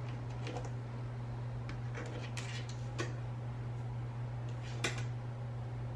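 Small pink plastic KAM snap parts clicking lightly as they are picked up off the mat and handled in a palm, a few scattered faint clicks over a steady low hum.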